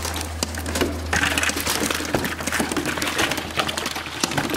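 Crappie being dumped from a wire fish basket into a plastic bucket: irregular clicks and knocks of the wire cage and flopping fish, with water splashing and dripping, over a steady low hum.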